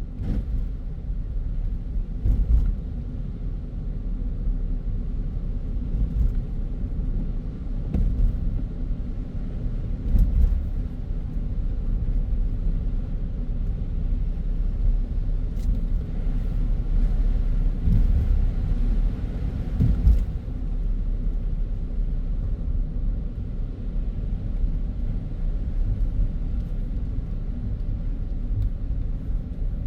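A car driving along a city road: a steady low rumble of engine and tyres, with a few faint brief ticks.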